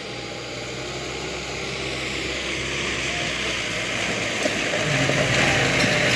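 Mahindra Bolero pickup's engine labouring uphill through deep mud, growing steadily louder as it approaches, with a rougher, harder-working note in the last second or so.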